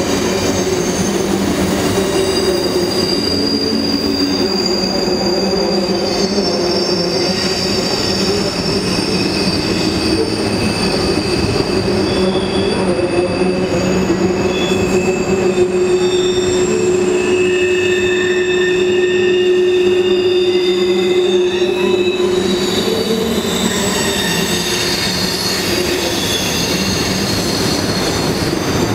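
Freight train of covered hopper cars rolling over a steel trestle bridge: a steady rumble of wheels on rail, with high-pitched wheel squeal in several shrill tones that come and go. A lower steady tone is held for several seconds in the middle.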